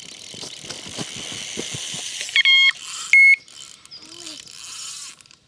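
Carp run: line peeling off a free-running reel spool with a fast ticking buzz, and the electronic bite alarm giving two loud beeps a little past halfway, a longer one then a short one.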